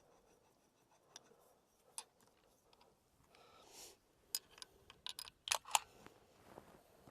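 A series of small, sharp metallic clicks and a brief rub from the rifle being handled, with the clicks bunched together a few seconds in. There is no gunshot.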